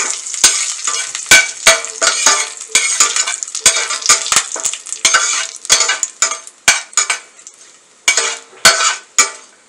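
Whole spices and freshly added curry leaves sizzling in hot oil in a stainless steel pan at the tempering stage. A perforated steel ladle stirs them, scraping and clicking against the pan. The sizzle drops away for a moment near the end, then the clicks of the ladle come back.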